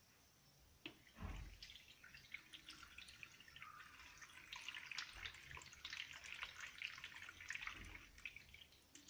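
Water poured from a glass jar into an aluminium pot packed with squash pieces and piloncillo, trickling and splashing faintly over the chunks. There is a soft bump about a second in, just before the pouring starts.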